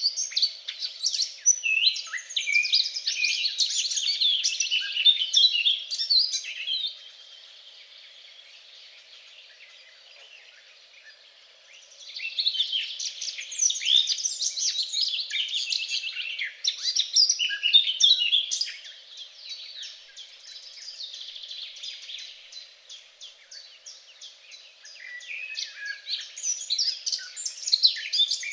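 Several songbirds singing together, a dense mix of rapid chirps and trills. The song comes in loud spells with two quieter stretches, one about a quarter of the way in and another past the middle.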